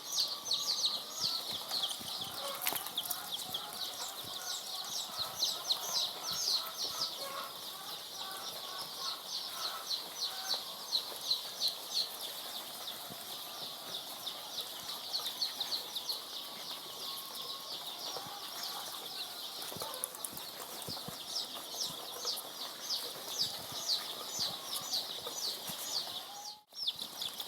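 A large brood of three-day-old layer chicks peeping all together: a dense, continuous chorus of short, high cheeps.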